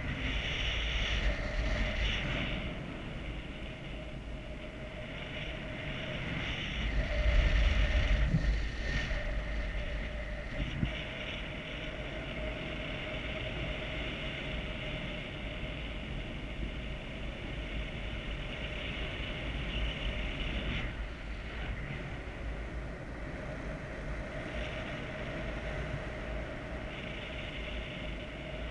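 Airflow buffeting the microphone of a camera carried by a flying paraglider pilot, a steady low rumble of wind that swells about seven seconds in. A faint steady hum runs beneath it.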